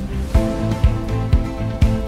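Instrumental background music with a steady beat, about two low thumps a second under held tones.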